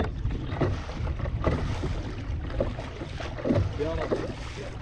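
Wind buffeting the microphone in a low rumble, with waves slapping and splashing against a kayak on rough sea in several sudden hits.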